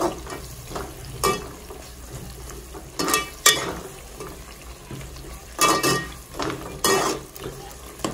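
Onion-tomato masala with ground spices sizzling in oil in a pot while being stirred and fried. The spoon scrapes and clinks against the pot about six times, and the louder strikes ring briefly.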